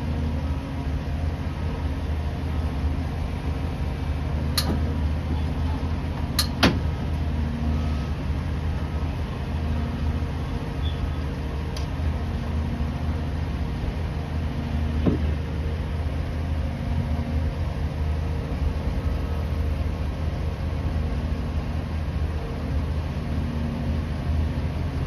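Steady low rumble of idling and working engines from the pickup and the scrap-yard grapple machine, with a few sharp metal clanks as the grapple handles the scrap tractor parts. The loudest clank comes about six and a half seconds in.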